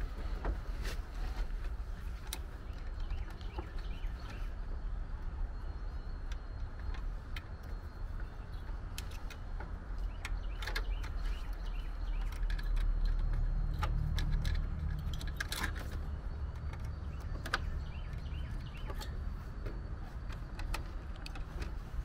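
Scattered small clicks and light rattles of wires and wire terminals being handled in an air conditioner's outdoor control panel, over a steady low rumble.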